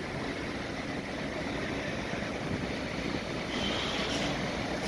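Steady low engine rumble of a vehicle or machine at work on a building site, with a brief faint high squeal about three and a half seconds in.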